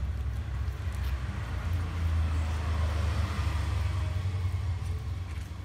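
Low steady rumble that swells about two seconds in and eases off near the end.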